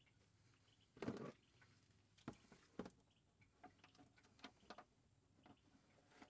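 Faint clicks and light handling noises from a Femco drain tube being fitted to the oil pan's drain plug. A brief scuffle comes about a second in, followed by scattered single ticks.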